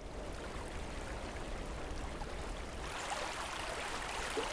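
Steady rush of wind and ocean surf, with wind rumbling on the microphone; it grows a little stronger about three seconds in.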